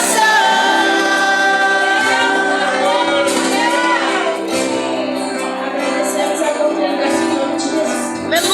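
Live church worship song: a singing voice over sustained band accompaniment, holding one long high note for the first few seconds before the melody moves on.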